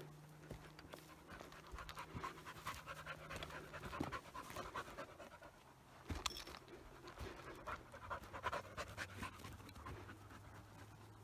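Rapid panting breaths, faint and close.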